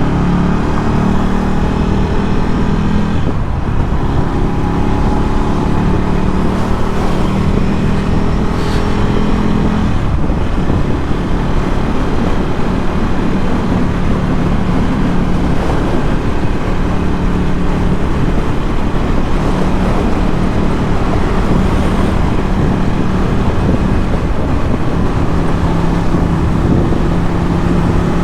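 Ducati Scrambler 1100's air-cooled L-twin engine breathing through a Termignoni exhaust, running under way at a steady cruise. The engine note shifts in pitch a few times, most clearly about 3 and 10 seconds in, over a steady rush of wind and road noise.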